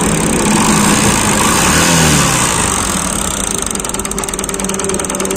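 Bajaj Discover DTS-i motorcycle's single-cylinder four-stroke engine running, revved once about two seconds in and settling back to idle. The engine is worn: the bike is smoking and is in for an engine rebuild.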